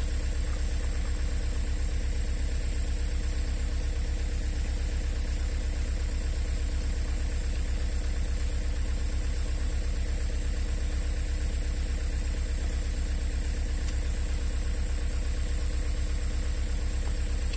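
An engine idling steadily, with an even, fast low throb that does not change.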